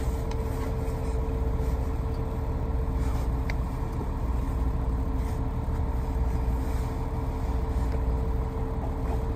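Steady engine hum and low rumble of a box truck, heard inside the cab, with a constant droning tone.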